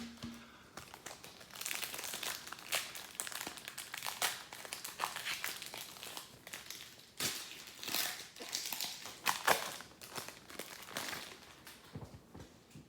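Wrapper of a trading card pack being opened and crinkled by hand, an irregular run of crackling and rustling.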